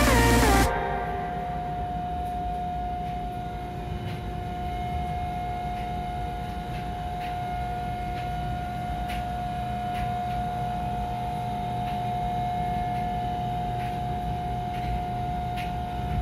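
Steady machinery hum with a constant high whine over a low rumble, and a few faint clicks. Background music cuts off under a second in.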